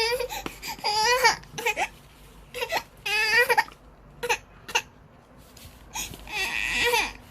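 A young child crying in a string of short, wavering wails, with a longer wail near the end.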